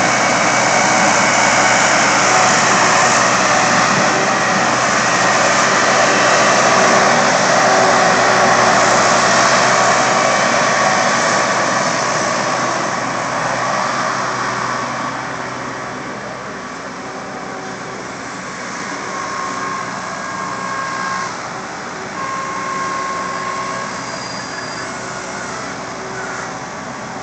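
Skid steer loader's engine running at work, loudest for the first half and then dropping to a lower, steadier level.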